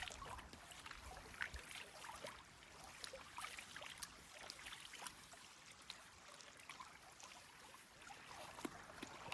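Quiet lakeside ambience: faint trickling water with scattered light ticks.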